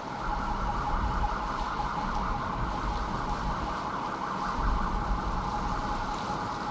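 A steady high-pitched mechanical hum that holds one pitch without rising or falling, with low wind rumble buffeting the microphone.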